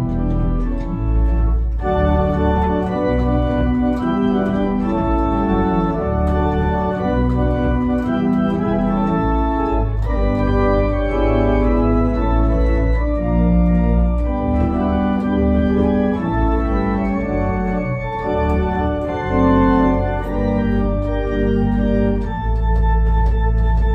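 Church organ playing a harvest hymn tune in full sustained chords over a deep pedal bass, with a long held low bass note near the end.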